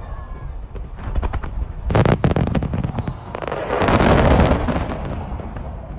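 Aerial fireworks going off: a quick cluster of bangs and pops about two seconds in, then a dense crackling shower that swells around the fourth second and fades.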